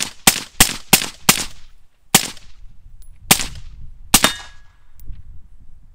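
AR-15 with a Gemtech Integra upper firing Wolf Gold 55-grain 5.56 ammunition: a quick string of about five shots, then three slower single shots about a second apart, the last one emptying the magazine.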